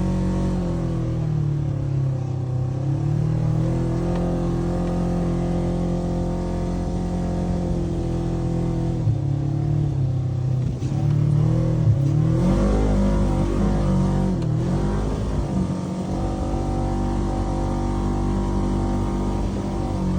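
Polaris RZR 900 side-by-side's engine running hard under throttle, its pitch dipping and rising as the revs change, with a stretch of wavering, uneven revs in the middle.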